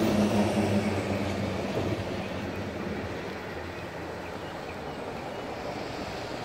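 MARC commuter train running away down the tracks, its rumble fading over the first couple of seconds and leaving a faint, steady noise.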